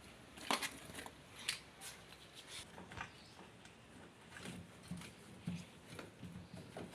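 Hands handling the washing machine's inlet pipe and fittings: scattered light clicks, taps and rustles, about a dozen in all.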